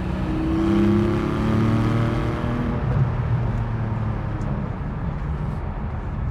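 Porsche 718 Cayman GTS's 4.0-litre naturally aspirated flat-six engine pulling under acceleration, loudest about a second in. Its higher note fades by about three seconds in, leaving a steady low drone.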